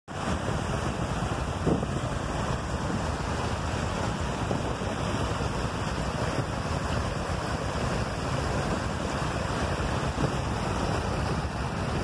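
Water rushing and splashing down a shallow rocky cascade over flat rock slabs, a steady, unbroken rush.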